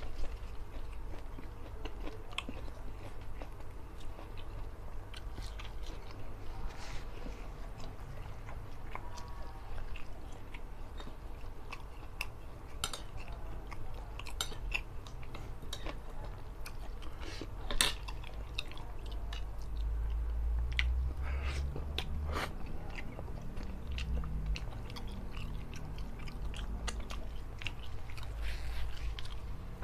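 A man chewing and biting a mouthful of fish-head curry and rice, close-miked, with many short wet mouth clicks and occasional crunches.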